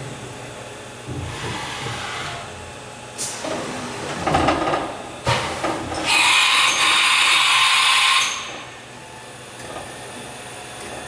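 STYLE BT-2000 CNC machining centre in operation: bursts of hissing with a sharp click about three seconds in and a knock about five seconds in, then the loudest hiss for about two seconds before it drops back to a steady lower machine noise.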